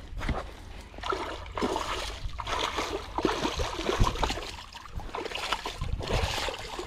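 Water splashing and sloshing in irregular bursts: a hooked pike thrashing at the surface as it is brought in to the bank.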